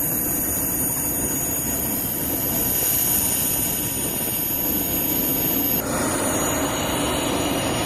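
Airbus A400M's Europrop TP400 turboprop engines running: a steady roar with high-pitched turbine whine. About six seconds in, the sound changes abruptly to a brighter, harsher engine noise.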